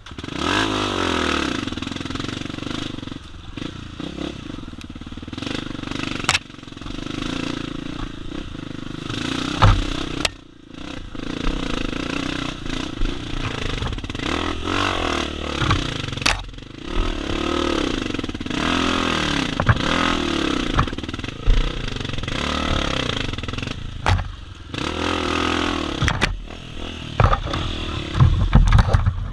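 Honda CRF250F's single-cylinder four-stroke engine being ridden, its note rising and falling again and again as the throttle is opened and closed, with a few sharp knocks along the way.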